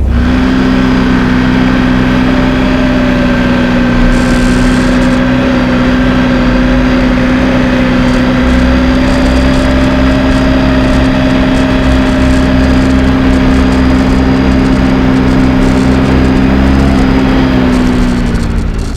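Engine of a tracked ATV running at steady, high revs, its pitch held nearly constant, then dropping away near the end.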